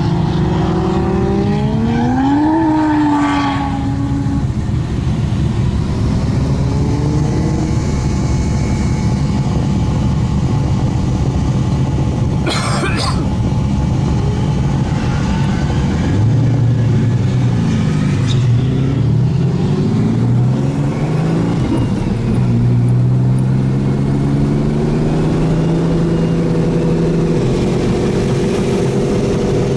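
Car engine, a turbocharged Ecotec V6 in a Holden Commodore, accelerating: its note climbs in the first few seconds and then holds steady under load. There is a sharp double crack about halfway through, and engine notes rise and fall across each other later on before it climbs and holds again.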